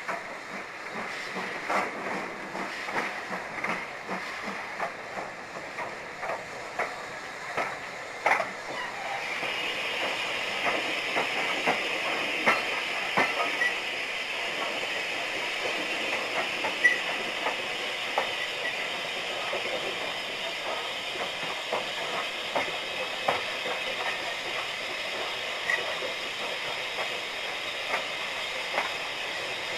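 Heritage railway train running along, heard from an open carriage window, its wheels clicking over the rail joints. From about nine seconds in, a steady hiss joins the rumble and carries on.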